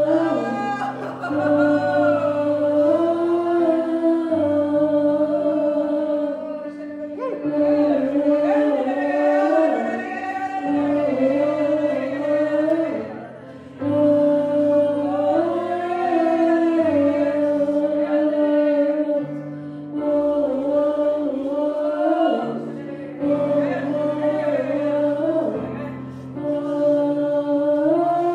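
Worship singing: voices singing freely over long held chords that change every couple of seconds.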